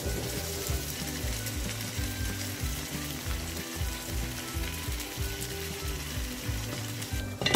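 Striped dwarf catfish curry sizzling steadily in a frying pan as it cooks down on the hob's residual heat after the heat is switched off, with a wooden spatula moving through it.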